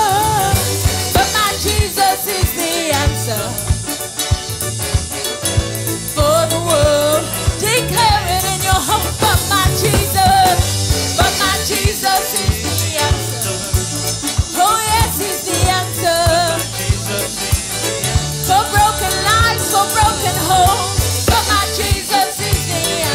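Upbeat gospel worship music from a band with drum kit and bass, a melody line that bends like singing running over it.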